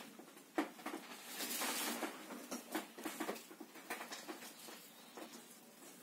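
Faint scratchy rustling and scattered light clicks, like handling noise. The noise swells briefly a little after a second in.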